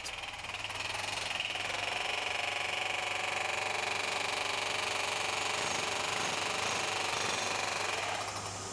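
Construction machinery on a building site running steadily: a continuous engine-driven drone that fades in at the start and eases off near the end.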